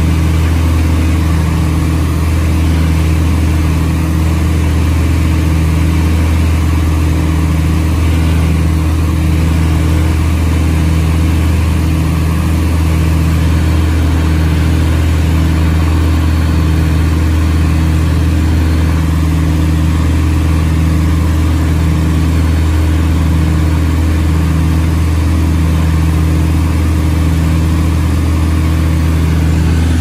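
The twin piston engines and propellers of an Aero Commander L-26B droning steadily in cruise, heard inside the cockpit. A slow, regular pulsing runs through the drone.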